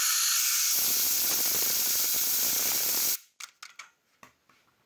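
Compressed-air blow gun blasting a jet against an apple held in the palm to spin it up: a loud steady hiss that grows fuller and deeper about a second in, then cuts off suddenly after about three seconds. A few light clicks follow.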